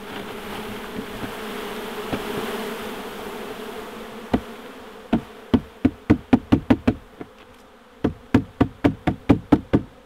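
A honey bee swarm buzzing as it is tipped from a plastic tub into a nuc box. From about five seconds in, the upturned tub is rapped in two quick runs of about ten knocks each, four or five a second, to shake the last bees out onto the frames.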